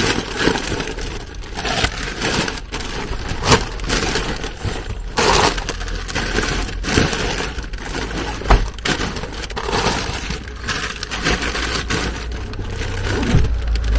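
Plastic snack-bag packaging crinkling and rustling in irregular crackles as groceries are stuffed into a fabric backpack, over a low steady rumble.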